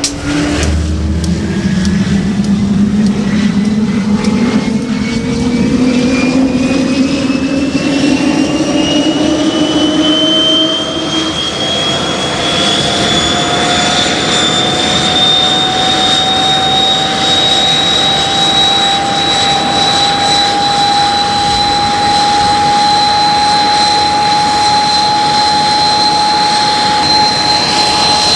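De Havilland Goblin turbojet of a DH.115 Vampire T55 starting up: a loud whine climbs steadily in pitch for about fifteen seconds as the engine spools up, then settles into a steady high idle whine with jet rush under it.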